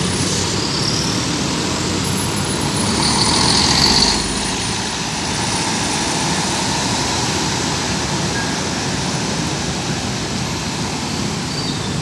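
Road traffic on a busy street: the engines and tyres of passing vehicles, with one vehicle passing close and louder about four seconds in.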